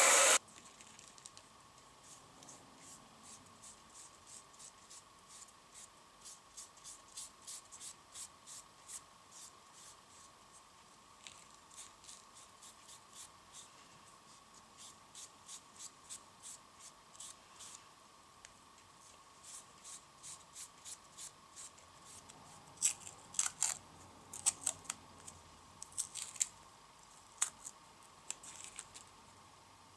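Small handwork on a workbench: a long series of light scraping clicks, about three a second, turning into louder, sharper clicks in the last third, over a faint steady high hum.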